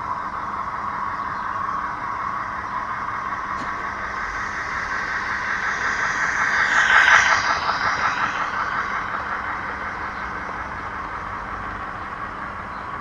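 Model locomotive in the green 60103 'Flying Scotsman' livery, with its coaches, running past on a garden railway track: a steady whirring rumble of motor and wheels on rail. It builds to its loudest as the engine passes about seven seconds in, then eases as the coaches roll by.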